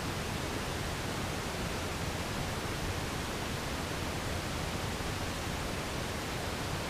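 Steady, even hiss of background noise with nothing distinct in it; no motorcycle engine stands out.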